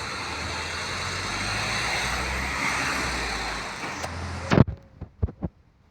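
LG air conditioner running, a steady noise of fan and airflow over a low hum. It cuts off suddenly about four and a half seconds in, followed by a few sharp knocks.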